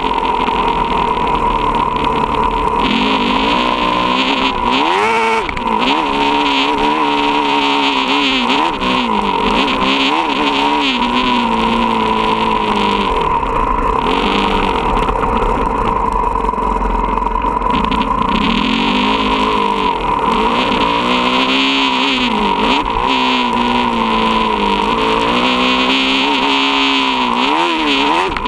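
Motocross dirt bike engine heard from on the bike, revving up and down over and over as the rider accelerates and backs off around a dirt track, with a steady high whine underneath.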